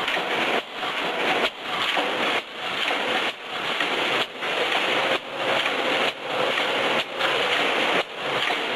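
Automatic wire mesh welding machine running in production. A dense, steady noise breaks off briefly about once a second as the machine repeats its weld-and-advance cycle.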